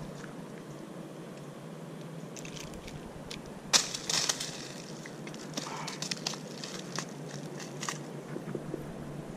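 Dry leaves and twigs on the ground crackling and crunching in scattered sharp clicks, the loudest about four seconds in, over a steady low hum.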